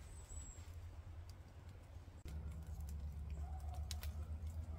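Open wood campfire crackling, with scattered small pops and ticks over a steady low rumble; the rumble gets louder abruptly a little over two seconds in.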